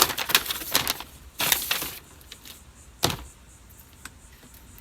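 Clicks and knocks of a pressure washer's high-pressure hose fitting and plastic trigger handle being handled for assembly: several sharp clicks near the start, a brief rustle about one and a half seconds in, and a single louder click about three seconds in.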